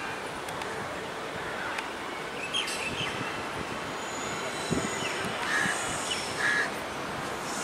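Steady noise of a train running on the tracks, with a few short bird chirps over it and a single knock about halfway through.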